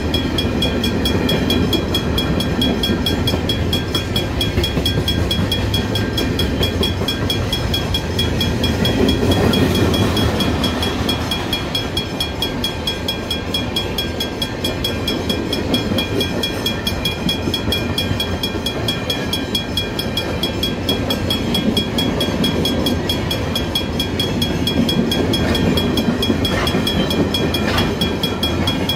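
Freight train of flat wagons with steel-coil cradles rumbling steadily past a level crossing. Over it, the crossing's warning bell rings rapidly and without a break.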